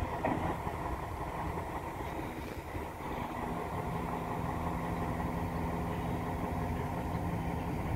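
Diesel engine running steadily, a constant drone with an even hum.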